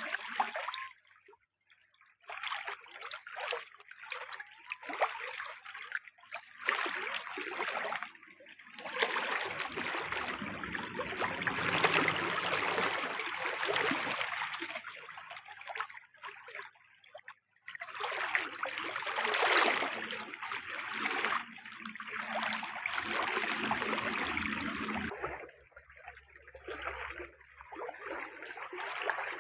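Water running and splashing, with short breaks about a second in and again around the middle.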